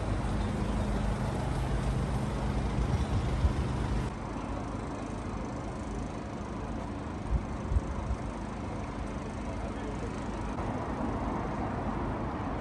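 A parked ice cream van idling with a steady low hum. About four seconds in this gives way abruptly to a steady outdoor rumble of road traffic, with two short low thumps midway.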